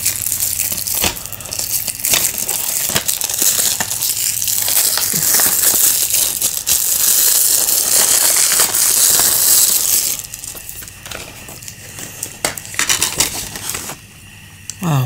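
Plastic wrapping crinkling and crackling as it is pulled off a DVD case, with clicks of the plastic case being handled. The crinkling is loudest from about six to ten seconds in, then thins to scattered clicks.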